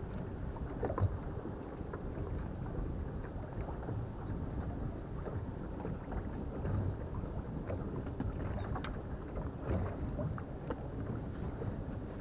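Steady low rumble of wind and water around a small boat on the camera's microphone, with a few light knocks scattered through it.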